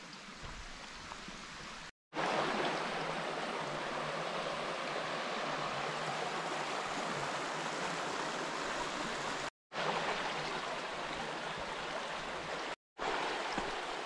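Ehrbach creek rushing steadily. The sound is fainter for the first two seconds, then louder, and cuts out abruptly for a moment three times: about two seconds in, near ten seconds and near thirteen seconds.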